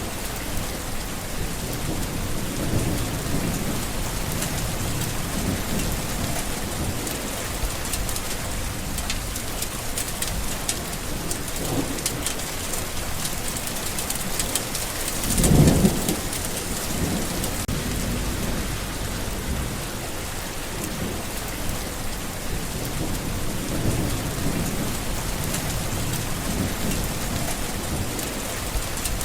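Steady rain with low rumbles of thunder; one louder roll of thunder about halfway through.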